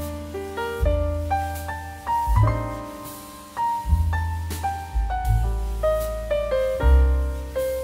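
Background piano music: a melody of single fading notes played over low bass notes.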